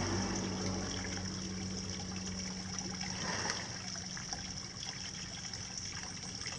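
Steady trickle of running water, with a low hum underneath.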